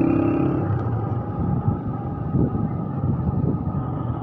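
Motorcycle engine running steadily while being ridden, heard from the rider's seat, with a few short thumps in the middle.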